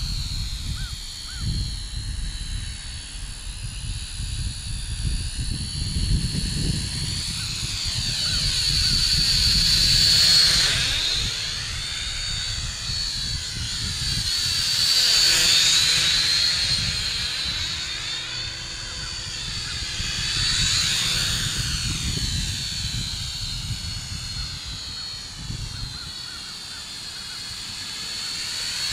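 Syma X5C toy quadcopter's four small brushed motors and propellers whining as it flies around, swelling louder three times as it passes close, about ten, fifteen and twenty-one seconds in. A low rumble sits underneath.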